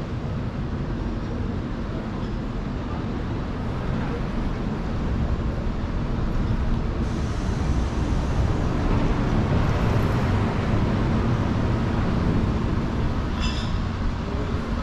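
Street traffic: a heavy vehicle's low, steady rumble that grows louder as it passes close by and eases again near the end.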